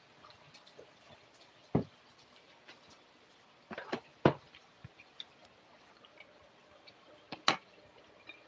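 A few scattered sharp clicks and knocks of dishes and utensils being handled over quiet room tone: one a little under two seconds in, a quick cluster of several about four seconds in, and one more sharp click near the end.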